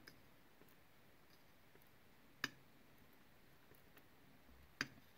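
Near silence broken by two sharp little clicks, one about halfway through and one near the end: steel tweezers handling tiny lock pins on an aluminium parts tray.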